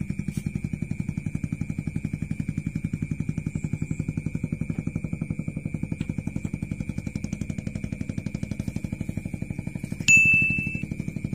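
A fishing-rod bite bell gives one sharp ding about ten seconds in, ringing out and fading within a second: a fish touching the bait. Under it a steady, fast, low engine-like chugging runs throughout with a faint steady high whine.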